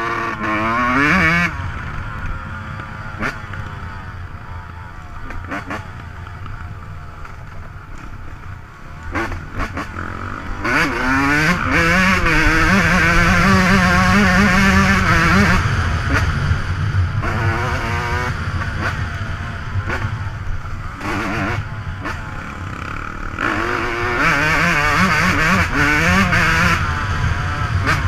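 Dirt bike engine revving up and down as the throttle is opened and closed while riding a trail, loudest in the middle and again near the end.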